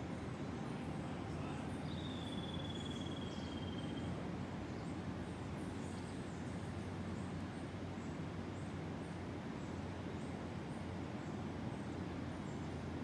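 Tropical forest ambience over a steady low rumble, likely distant ocean surf. About two seconds in, a bird gives one long whistle, falling slightly in pitch. Faint, short high chirps of birds or insects come and go throughout.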